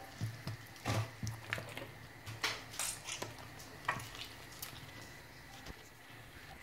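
Raw meat being squeezed and rinsed by hand in a plastic bowl of water, with irregular wet splashes and squelches, thinning out near the end.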